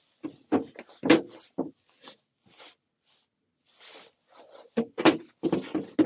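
Pallet-wood boards and frames being handled: irregular wooden knocks and scrapes as the pieces are turned over and set down, with the two sharpest knocks about a second in and about five seconds in.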